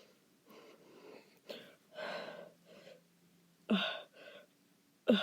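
A woman's short, strained breaths and gasps as she tries to hold back burps from a bottle of sparkling water she has just chugged. Two sharper, louder throat sounds follow, one about three and a half seconds in and one as it ends, as the carbonation pushes up.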